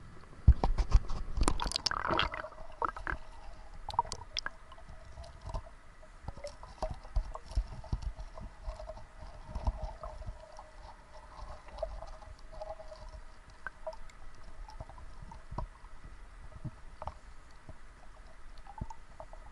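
Water splashing as a diver goes under, then the muffled sound of a camera underwater: scattered soft clicks and knocks with a faint steady tone.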